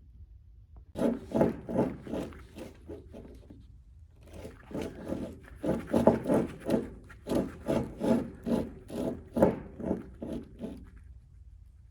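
Rhythmic rasping, grinding strokes at about three a second from a Suzuki Jimny's differential as the drivetrain turns, in two runs with a short pause. The sound is the sign of a damaged ring gear.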